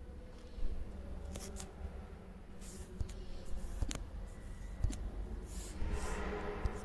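Low steady hum with a few scattered soft clicks and two brief hissing rustles, the small handling noises of a quiet room.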